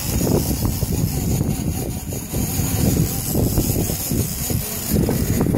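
Wind buffeting the microphone over the low drone of a boat at sea: a loud, steady, gusty rumble.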